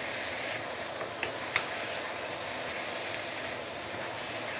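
Chili-paste marinated pork and vegetables sizzling in a wok while a wooden spatula stirs them. Two sharp ticks come about a second and a half in, the second being the loudest sound.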